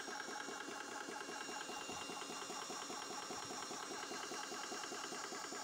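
Portable PCP mini air compressor running steadily, its small piston pump making a fast, even rhythm of strokes.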